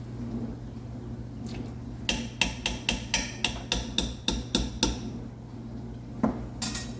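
A quick run of about a dozen sharp knocks, about four a second, with a few single knocks before and after, over a steady low hum.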